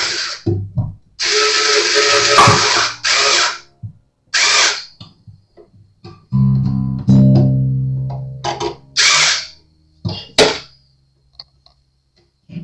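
Power drill winding an acoustic guitar's tuning machines in several short bursts. About six seconds in, a low guitar string is plucked and rings out, fading over a couple of seconds.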